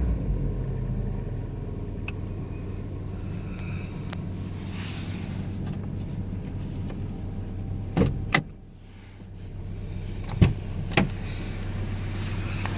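Hyundai Coupe's 2.0-litre four-cylinder engine idling steadily, with a few sharp knocks, two close together about eight seconds in and two more a couple of seconds later. The car is being recorded for a strange engine noise.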